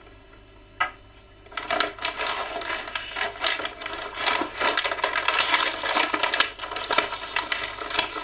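Plastic toy packaging crackling and rustling as action-figure parts are pulled out and handled. It starts with a single click and turns to dense, continuous crackling about a second and a half in.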